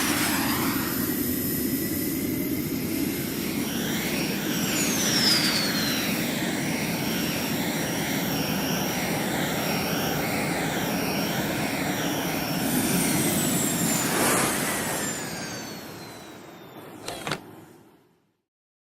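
Aircraft engine sound effect: a steady jet-like noise with a high whine that slides in pitch a few times, fading away in the last few seconds with a short click just before it goes silent.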